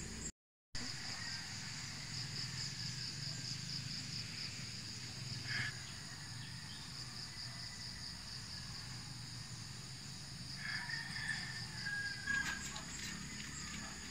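Evening insect chorus: a steady, high-pitched pulsing trill of crickets, with a few short bird chirps partway through. The sound cuts out for a moment just after the start.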